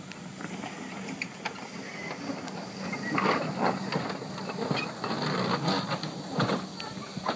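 Narrow-gauge Hunslet saddle-tank steam locomotive moving slowly: a steady steam hiss and low hum, then from about three seconds in a louder string of irregular chuffs and clanks.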